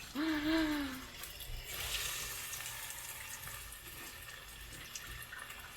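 A short sound from a woman's voice, then a kitchen tap turned on about two seconds in, with water running steadily.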